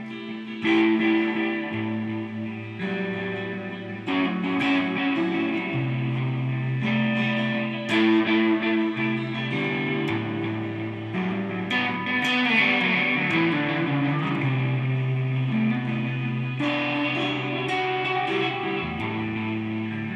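Guitar chords strummed and left ringing, a new chord struck about every four seconds, with held low notes underneath: an instrumental passage with no singing.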